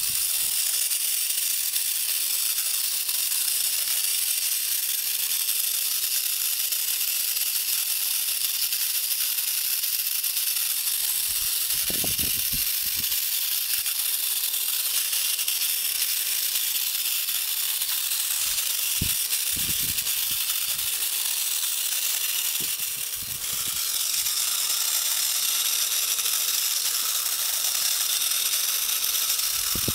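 Clockwork spring motor of a vintage Occupied Japan wind-up toy bear running as it walks: a steady high, rattling whir of the gears, with a few soft knocks here and there.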